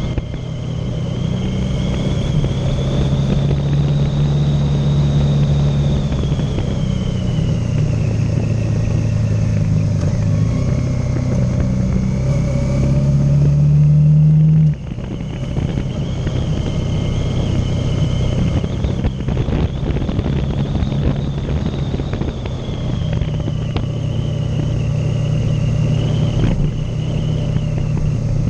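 Motorcycle engine running while being ridden, loud and continuous; its pitch climbs until about halfway through, then drops suddenly, and the engine runs on at a steady pitch.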